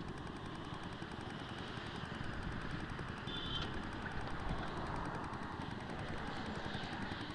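Motorcycle engine idling at a standstill, a steady rapid exhaust putter.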